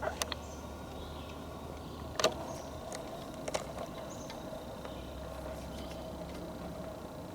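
Footsteps on the forest floor, with a few sharp twig snaps and crunches, the loudest about two seconds in.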